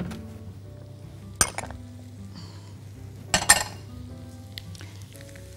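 Soaked, drained rice sizzling as it fries in oil in a wok, stirred with a spatula. One sharp clink about a second and a half in and a short cluster of louder clinks around three and a half seconds as the spatula knocks the pan, over soft background music.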